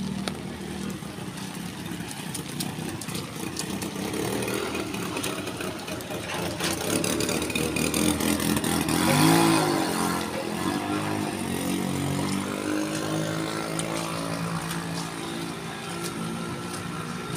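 Small engines of auto-rickshaws and motorcycles running through street floodwater, louder about nine seconds in as one passes close, its pitch rising and falling.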